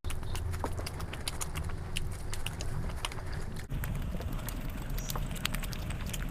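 Close-miked eating sounds: chewing with a steady stream of small mouth and food clicks.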